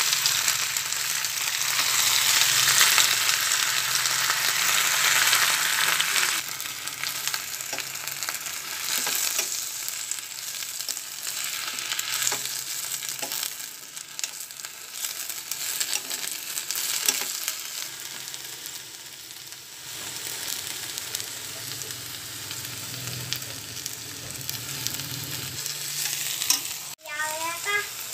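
Leafy greens and garlic sizzling in a hot metal pan while being stir-fried, with a metal spatula clicking and scraping against the pan. The sizzle is loudest over the first six seconds or so, then drops and carries on more quietly.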